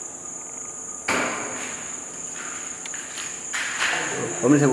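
Crickets chirping steadily at night, broken by two sudden thuds, about a second in and again past three seconds, each ringing out briefly. A short pitched sound like a voice comes in near the end.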